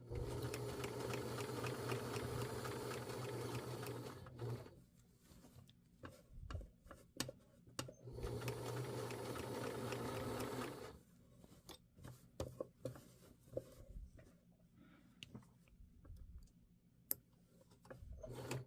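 Sewing machine stitching through denim in two runs of about four seconds each, with short clicks and handling sounds between and after them.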